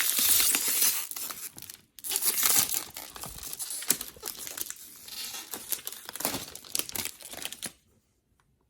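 Plastic packaging being crinkled and torn: a dense crackling rustle that breaks off briefly about two seconds in and stops shortly before the end.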